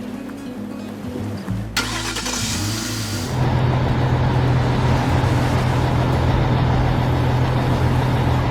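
Cartoon sound effects over background music: a whoosh about two seconds in, then a heavy vehicle engine running with a steady low hum from about three seconds on.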